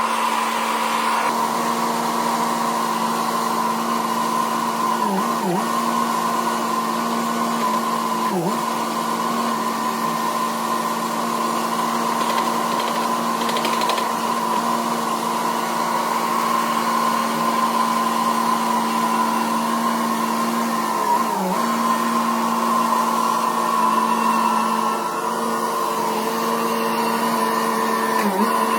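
A motor running steadily at high speed with a whining hum, dipping briefly in pitch a few times as if under momentary load.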